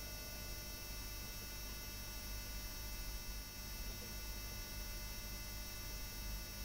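Steady low electrical hum with a background hiss, unchanging throughout.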